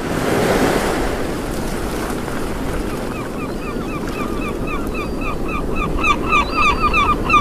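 Sea waves and wind making a steady rush. From about three seconds in, seabirds call in quick, short, repeated cries that grow busier toward the end.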